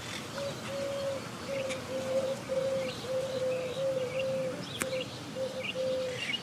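A steady run of short, low cooing notes at one pitch, about two to three a second, typical of a dove, with faint high chirps of Monk parakeets over it. A single sharp click comes near the end.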